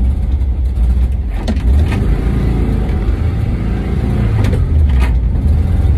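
The 1979 VW T2 campervan's rear air-cooled flat-four engine running as the van drives along, heard from inside the cab as a steady low drone. A few light knocks sound over it, four in all.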